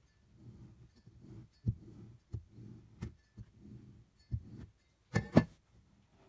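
A knife blade drawn again and again through a soft, crumbly block, each stroke a soft low scrape, with a few sharp clicks. About five seconds in come two loud crackling crunches as hands squeeze the sliced block.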